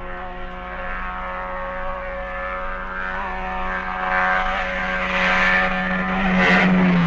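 A steady engine drone at an even pitch, growing louder over the last few seconds.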